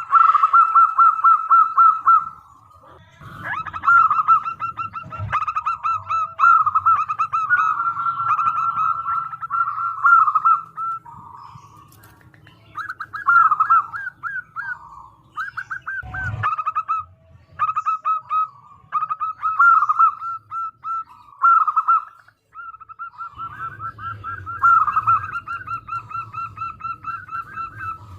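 Zebra dove (perkutut) song: repeated phrases of rapid staccato cooing notes, each phrase lasting a second or two with short gaps between. A low rumble runs under some phrases, and there is a single knock about halfway through.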